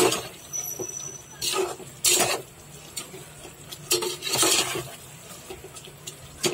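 A metal spoon stirring and scraping inside a metal pressure cooker, moving kidney beans through a thick masala. The scraping comes in separate strokes every second or two, the longest about four seconds in.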